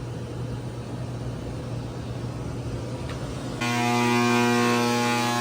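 Mains electrical hum from the magnetic ballast and 12 kW metal halide lamp running near full power. About three and a half seconds in it suddenly jumps to a louder, rich buzz.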